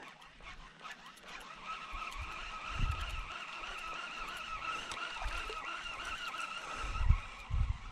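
Fishing reel being cranked to retrieve a lure, a steady whirring whine that starts about a second and a half in and fades near the end, with a few low bumps of rod handling.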